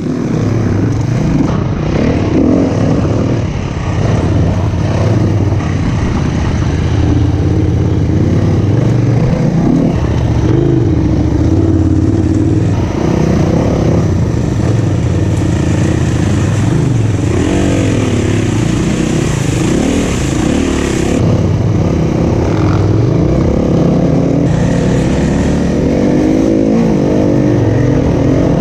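SWM 300 RS single-cylinder enduro motorcycle engine running while being ridden off-road, its revs repeatedly rising and falling with the throttle.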